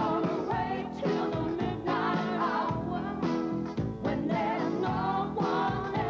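Pop song playing: a sung vocal over a full band with a steady beat.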